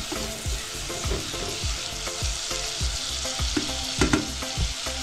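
Chopped red onion sizzling in hot cooking oil in a stainless steel pot, stirred with a spatula that scrapes and knocks against the pot several times a second over the steady hiss.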